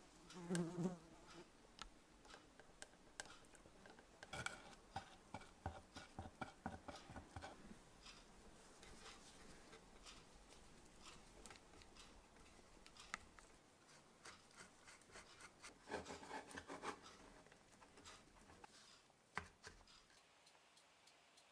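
Faint scattered clicks and light taps, in clusters about four to eight seconds in and again around sixteen seconds in, with a brief low hum at the very start.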